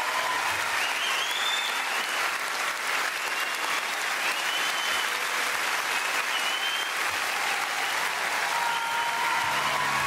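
Theatre audience applauding steadily, with whistles rising and falling above the clapping.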